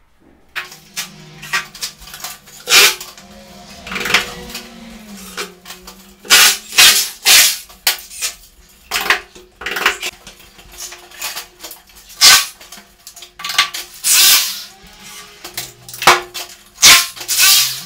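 Power drills running in short bursts, about half a second to a second each, several times, as holes are drilled into the wall and screws driven to fix the stretch-ceiling mounting profile along the perimeter, with sharp knocks and clatter between.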